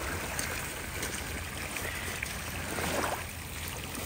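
Steady rushing of lake water washing at the shore, with a brief louder wash about three seconds in.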